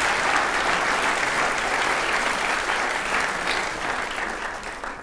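Theatre audience applauding, many hands clapping steadily, fading away over the last second or so.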